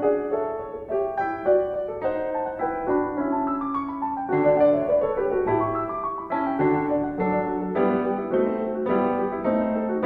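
Background piano music, a gentle melody of single notes over a slower bass line.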